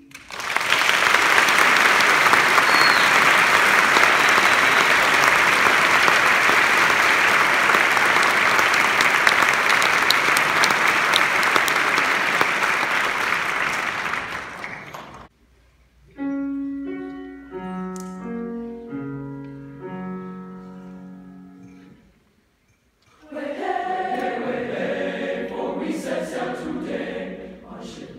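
Audience applauding for about fourteen seconds, then a piano playing a short, slow introduction of separate ringing notes, after which a boys' choir starts singing about 23 seconds in.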